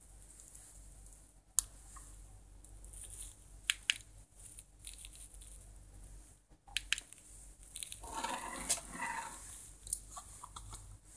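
Close handling noise: a few sharp clicks, the loudest about a second and a half in, then a rustle lasting about a second and a half around eight seconds in as the glove's packaging box is picked up.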